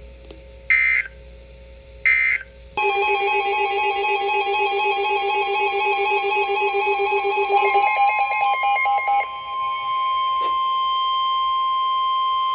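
Emergency Alert System signalling on NOAA Weather Radio. It opens with short buzzy digital data bursts, the end-of-message code closing the tornado watch. About three seconds in a loud electronic alarm of several tones starts, changes twice, and settles about nine seconds in into a steady single-pitch attention tone announcing the tornado warning that follows.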